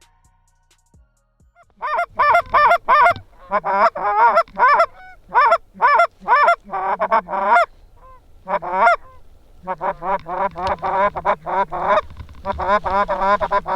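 Goose honking: loud honks and clucks in bursts with short gaps, starting about two seconds in, then a fast run of clucks near the end.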